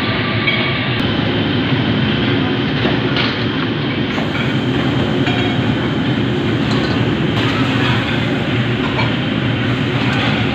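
Steady, loud roar of a commercial kitchen, a fan-like rumble that does not let up, with a few faint clinks of utensils.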